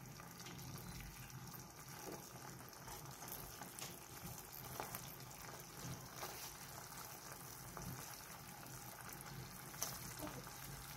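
Canned sardines in sauce sizzling and bubbling in a non-stick frying pan, a faint steady frying hiss. A silicone spatula stirs them, making a few soft scrapes and taps now and then.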